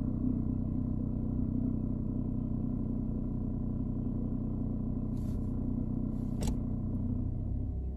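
BMW E87 116i's four-cylinder petrol engine idling steadily, checked for idle roughness after its VANOS solenoid valves were cleaned. A couple of faint clicks come over the hum partway through.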